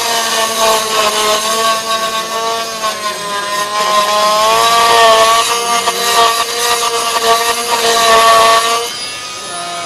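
FEIN MultiMaster oscillating multi-tool with a segment saw blade cutting into a tile grout joint: a steady motor whine over a gritty rasping. The whine sags in pitch under load for a moment and recovers, and the tool eases off about nine seconds in.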